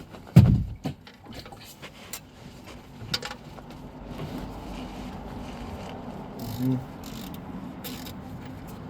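A loud knock and a few clicks as a 15 mm socket works the oil drain plug loose, then from about four seconds a steady rush of engine oil pouring from the 2017 Chevrolet Silverado's oil pan into a drain pan.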